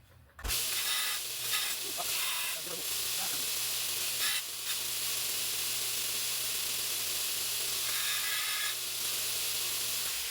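Knife blade steel being ground on a grinder: a steady hiss starts abruptly about half a second in and holds evenly over a low motor hum, grinding out saw cut marks during stock removal.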